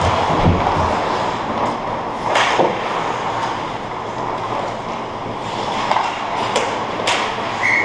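Ice hockey on an indoor rink: a steady noise of skate blades scraping and carving the ice, with sharp clacks of sticks and puck about two and a half seconds in and twice near the end.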